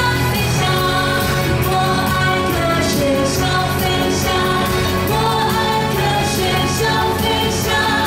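A woman singing live into a microphone over a pop band of electric guitar, keyboard and drums, with cymbal strokes ticking through the song.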